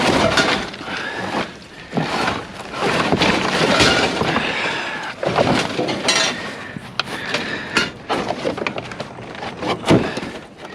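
Scrap being rummaged and tossed inside a metal dumpster: irregular clattering, clanking and scraping of pipes, wire and debris, with a sharp bang near the end.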